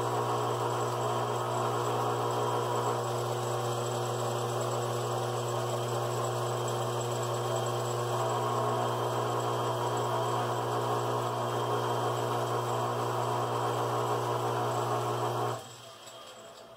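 Metal lathe running under power while it turns a stack of soda-can aluminum squares down into washers: a steady hum with a strong low tone. The sound drops away sharply about a second before the end.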